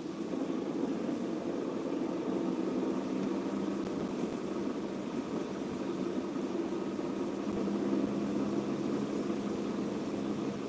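Car engine running and tyres on a wet road, heard from inside the car's cabin while driving: a steady hum.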